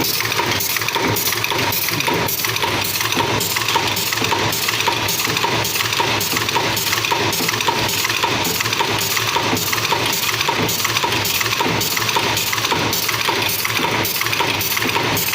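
Staple pin making machine running, its mechanism clattering metallically in a fast, even rhythm of strokes over a steady machine hum.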